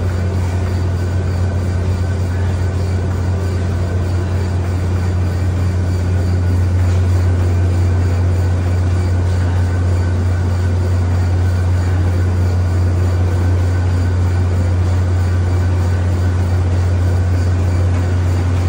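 Cybex treadmill running, a steady low hum from its motor and belt.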